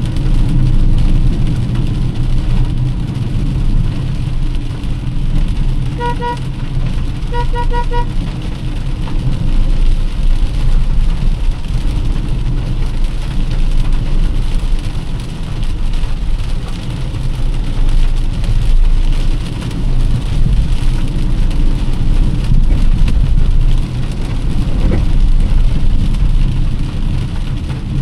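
Car driving in heavy rain: a steady low road and engine rumble under the hiss of rain. About six and seven and a half seconds in, a pitched beeping sounds in two quick runs of short toots.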